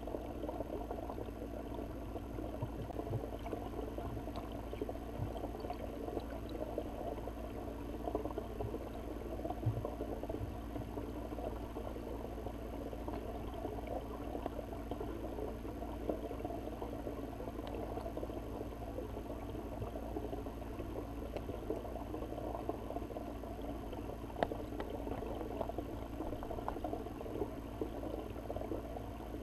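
Underwater ambience picked up by a camera in a waterproof housing: a steady, muffled crackling hiss with a few faint ticks, one sharper tick near the end.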